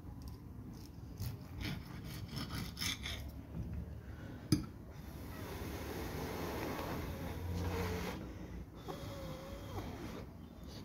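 Someone eating: chewing and breathing close to the microphone, with small clicks and one sharp click about four and a half seconds in.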